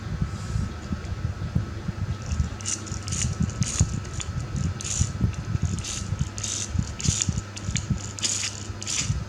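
Miniature toy car being handled, its small parts rattling and clicking in irregular quick bursts.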